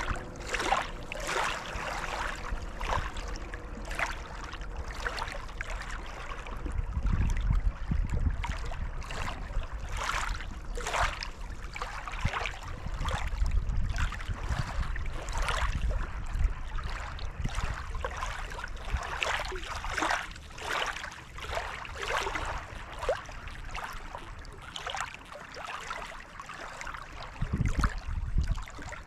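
Small lake waves lapping and splashing against the shore in irregular slaps, several a second, with bouts of low rumble now and then.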